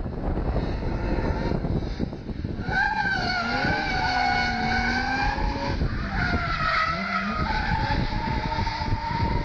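Car tyres squealing as a car drifts: a long wavering squeal starts about three seconds in, a second follows, then a steadier squeal near the end, over a low rumble.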